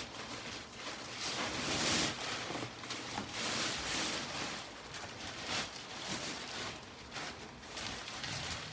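Irregular rustling and scuffing in uneven swells from a newly unboxed memory foam mattress and its wrapping being handled.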